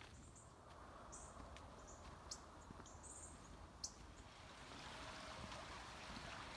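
Faint outdoor quiet with a few short, high bird chirps scattered through the first few seconds and an occasional small click.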